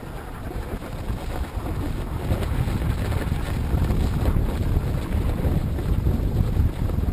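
Wind buffeting the microphone of a skier's action camera while moving down a ski slope, a low rushing rumble that grows louder as speed builds.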